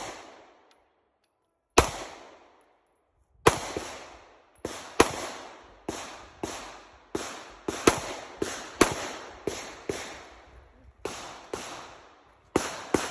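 Handgun firing about twenty shots in an uneven string of singles and quick pairs, some a third of a second apart. Each shot rings off briefly in an echoing tail.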